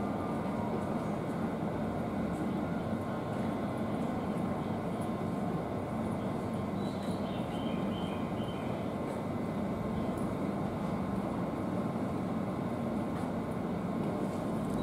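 JR East 205 series electric train standing at a station platform, its onboard equipment giving a steady, unchanging hum.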